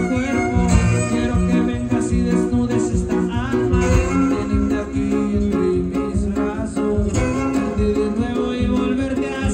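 A Huastec string trio playing a huapango: strummed jarana and huapanguera guitars keep a steady rhythmic pattern with violin lines over them.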